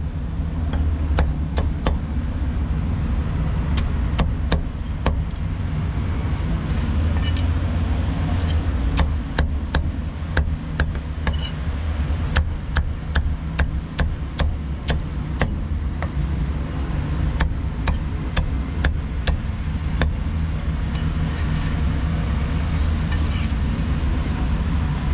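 Heavy meat cleaver chopping roast duck on a thick wooden chopping block: a run of sharp chops, about one to two a second and quickest in the middle, over a steady low background rumble.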